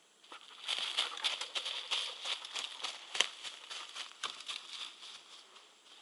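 Dry grass and undergrowth rustling and crackling under moving feet, a quick run of crunches and snaps that thins out toward the end.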